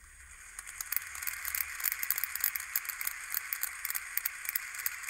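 Audience applause from a broadcast, heard thin and tinny through a phone's small speaker. It swells about half a second in and goes on as a steady, dense patter of claps.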